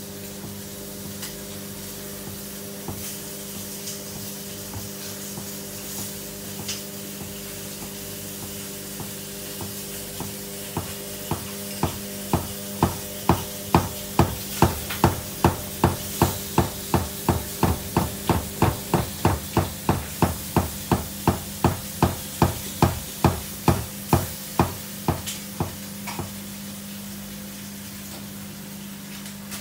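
Samsung front-loading washing machine tumbling a load in an overloaded drum: a steady motor hum, with a run of regular thumps, about two a second, that starts about a third of the way in and stops a few seconds before the end.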